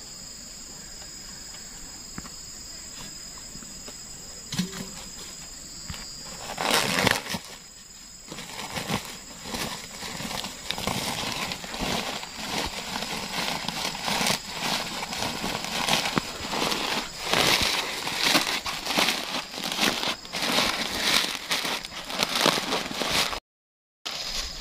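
A woven plastic fertilizer sack being handled and opened, rustling and crinkling in irregular bursts that start about six seconds in and go on steadily after that.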